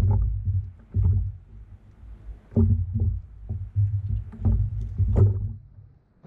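Irregular low thumps and knocks on a kayak's hull on the water, with a few sharper clicks between them.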